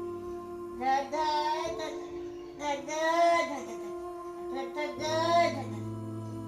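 Music with a steady held backing chord under three high, wavering vocal phrases.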